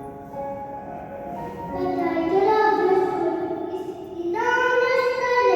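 Music with a child singing: a melodic accompaniment of steady notes, then a child's voice comes in about two seconds in, holding long sung notes.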